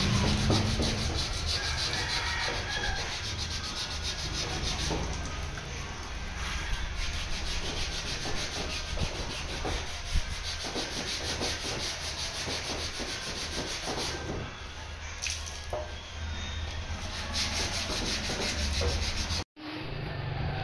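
Hand wet-sanding of a car fender with a sanding sponge: quick back-and-forth scratchy rubbing strokes over a steady low hum, breaking off suddenly near the end.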